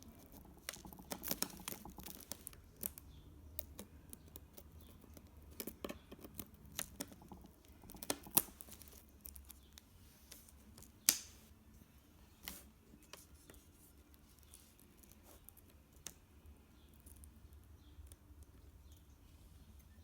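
Irregular light clicks, taps and crackles of hand work on an iPad 2 as its cracked glass screen is pried off the softened glue, with a couple of sharper clicks about eight and eleven seconds in.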